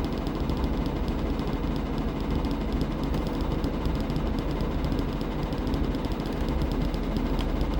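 Washing machine running steadily, with a fast, even rattle over a constant drone.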